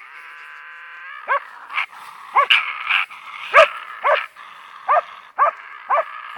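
Young West Siberian Laika barking excitedly, about eight short, high barks that drop in pitch, with a long, steady whine held between them.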